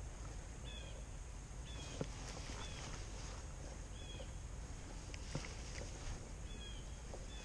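A bird chirping every second or two, each call short and slightly falling in pitch, over a steady low rumble of wind on the microphone. A few sharp clicks stand out above it, about two seconds in and again past the five-second mark.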